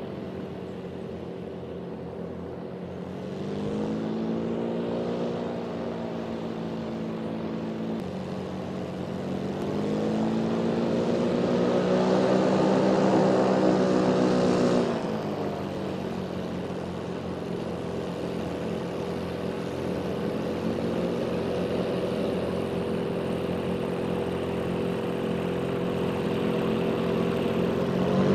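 MQ-1 Predator drone's Rotax four-cylinder piston engine and pusher propeller running while it taxis. The pitch rises twice, drops suddenly about halfway through, then holds steady before climbing again at the end.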